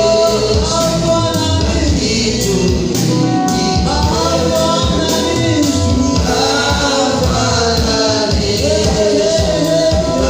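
Gospel worship song: singing over a band with a steady beat.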